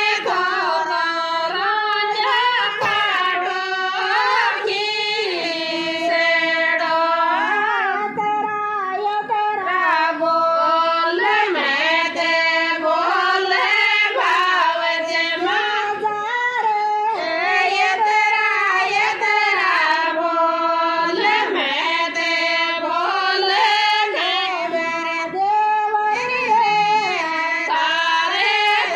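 Women singing a Rajasthani folk devotional song to Tejaji in long, held, wavering phrases.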